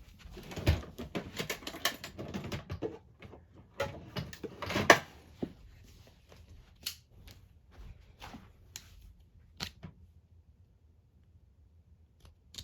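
Clattering clicks and rattles from handling a knife and a small padlock, with the knife scraping at the lock's plastic body. The clicks come thick for about the first five seconds, then thin out to a few sharp single clicks.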